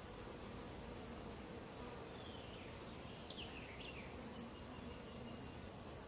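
Honeybees buzzing steadily around an open hive as a frame is lifted out and inspected.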